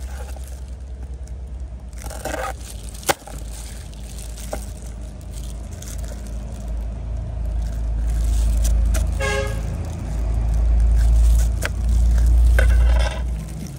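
A cleaver cutting peeled sugarcane on a plastic cutting board, with a few sharp knocks, the loudest about three seconds in. Under it runs a steady low rumble that grows louder in the second half, and a short high-pitched toot comes about nine seconds in.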